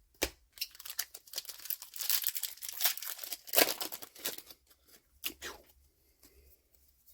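A foil trading-card booster pack being torn open and its wrapper crinkled: a dense crackling run of about four seconds, then a few sharp crinkles.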